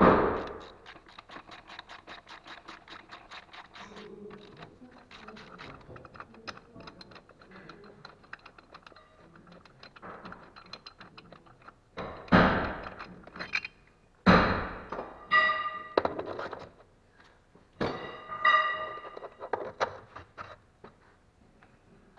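Ratchet wrench clicking quickly as it unscrews the 18 mm bolts of a lower engine mount, the clicking growing fainter after a few seconds. Then a few loud metal knocks and clanks, two of them ringing, as the bolts and mount come out.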